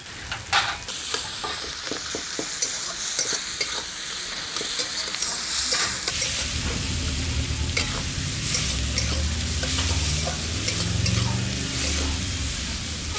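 Sliced onions sizzling in hot oil in a metal kadai, stirred with a metal spatula that scrapes and clicks against the pan. A low rumble joins about halfway through.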